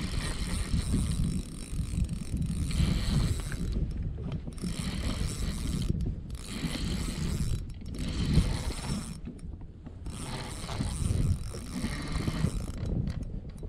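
Spinning reel being cranked, its gears and bail ticking as line is wound in, in stretches broken by short pauses, over a low rumble.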